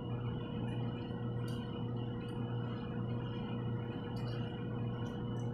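Steady low electrical hum in the room, with a few faint, light clicks of small metal bike parts and tools being handled.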